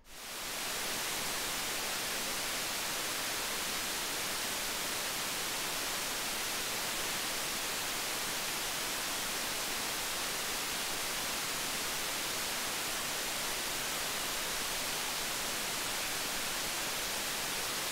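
Steady hiss of amplified op-amp noise from the op amp under test in the gain-of-101 test circuit, as the HP 3555B noise test set measures it. The hiss fades in over the first second, then holds even.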